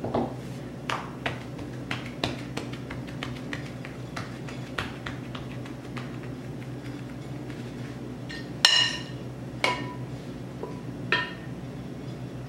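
Hands and a plastic rolling pin knocking lightly on a granite countertop as biscuit dough is rolled flat, a run of small sharp taps. About two-thirds of the way in, a metal spoon clinks three times with a ringing tone against a glass bowl as filling is scooped out.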